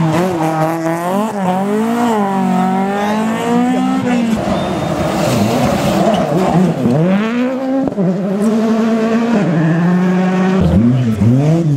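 Rally car engine revving hard, its pitch rising and falling again and again through gear changes and lifts off the throttle, with a stretch of rushing tyre or gravel noise about four seconds in.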